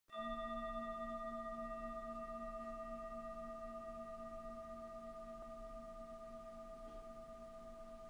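A single struck bell-like tone that rings on and slowly fades. Its low note pulses gently, and its higher overtones die away first.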